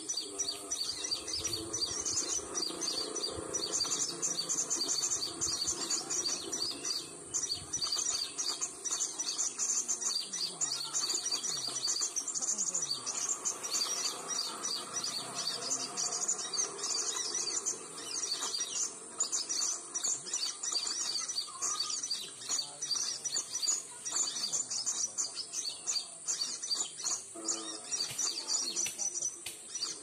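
Sunbird calls played from an MP3 player as a trapping lure: rapid, high chirping and twittering, with a steady high insect drone behind.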